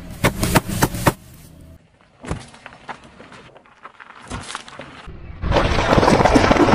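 Car tyre rolling over and crushing objects on asphalt, in quick cuts: a run of sharp pops and cracks in the first second as bags of gel beads burst, quieter crackling in the middle, then a dense, wet crunching from about five and a half seconds in as the tyre flattens red vegetable pieces.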